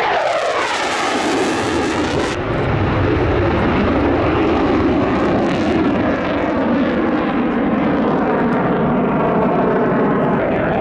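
Eurofighter Typhoon FGR4 jet fighter, its twin turbofan engines in afterburner: the pitch falls sharply over the first two seconds as it passes, then loud, steady jet noise as it turns.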